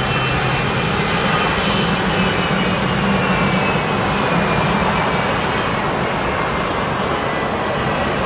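Boeing C-17 Globemaster III's four Pratt & Whitney F117 turbofan engines running at taxi power: a loud, steady jet rush under a high whine that slowly falls in pitch.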